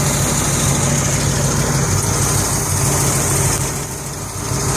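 1967 Cadillac Eldorado's original 429 cubic-inch V8 idling steadily, heard close to the open engine bay.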